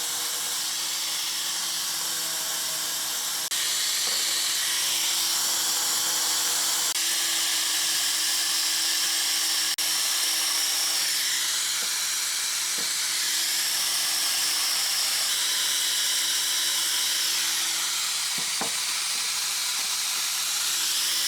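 A steady mechanical whir with a strong hiss over a constant low hum, holding level, then stopping abruptly.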